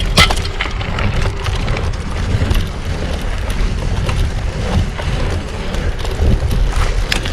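Wind buffeting an action camera's microphone and bicycle tyres rolling on a dirt track while a gravel bike is ridden, a steady rushing noise with a couple of sharp clicks at the start and near the end.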